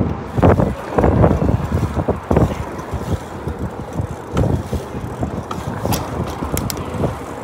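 Wind buffeting the microphone in uneven gusts and thumps while riding a bicycle along a city street, with traffic noise behind.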